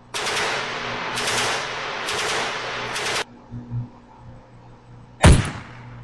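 Gunfire sound effects played through speakers: about three seconds of rapid automatic fire, then two seconds later a single loud gunshot with a heavy low end.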